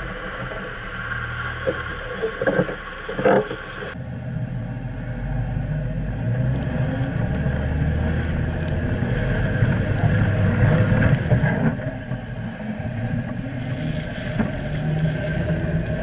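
Jeep Wrangler Rubicon driving over sand dunes, heard from under the vehicle: steady engine and drivetrain rumble, with a few sharp knocks from the front suspension in the first few seconds. The sound changes abruptly about four seconds in, where the view moves to the rear axle.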